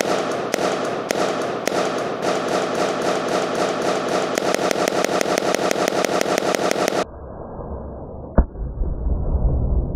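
A dense run of sharp crackling pops, a couple a second at first and then about eight to ten a second, that cuts off abruptly about seven seconds in. After it, over a low rumble, comes a single sharp crack about eight and a half seconds in: a pellet gun shot.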